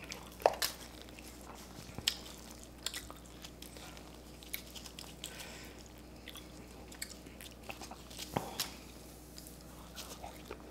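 A person eating stir-fried crab close to the microphone: chewing with scattered sharp crunches and clicks, a louder one about eight seconds in.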